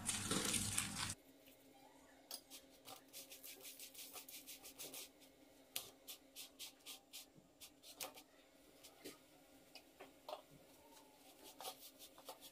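Oil sizzling on a hot iron tawa as it is brushed onto a roti, cutting off suddenly about a second in. After that come faint, irregular scratchy rubbing and clicks as a hand spreads the oil over the roti on the griddle.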